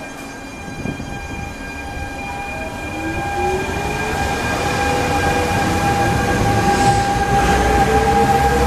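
RER A MI09 double-deck electric train accelerating along the platform, its traction motors giving a whine that climbs steadily in pitch over steady electrical tones and rising rail noise.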